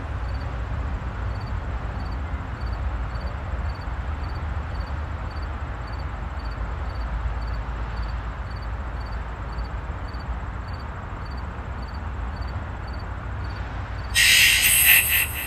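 Steady low rumble of outdoor background noise, with a loud burst of hiss lasting about a second near the end.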